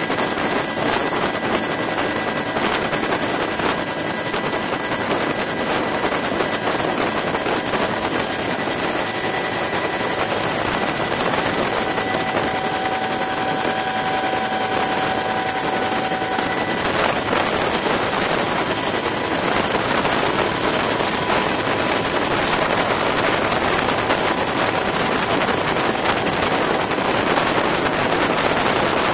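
Bell UH-1 Huey helicopter in flight, heard from inside the cabin: steady rotor and turbine noise with a faint high whine over it.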